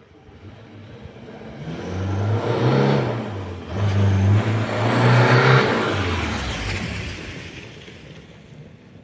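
VAZ-2101 Zhiguli car engine pulling under acceleration, getting louder, dropping briefly about three and a half seconds in as if for a gear change, pulling again, then dying away over the last few seconds.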